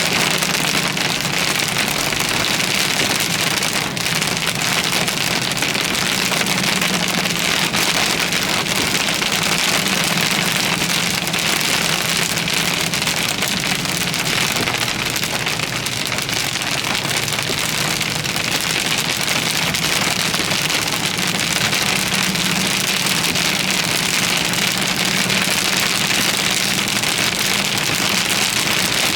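Heavy rain pelting a vehicle, a dense steady hiss with no letup, over a faint low hum from the vehicle.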